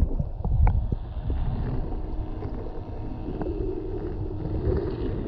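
Muffled underwater sound picked up by a camera held below the sea surface: a low rumbling wash of water with a faint steady hum and a few small clicks.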